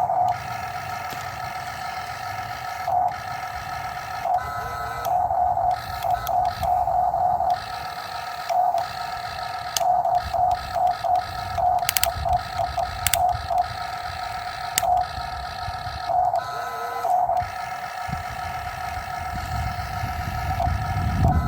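Excavator running and digging: a steady whine that holds one pitch, surging louder in short pulses over and over as the controls are worked, over a faint low rumble.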